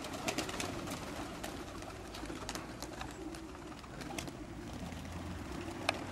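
Domestic pigeons cooing at the loft, with a few sharp clicks scattered through.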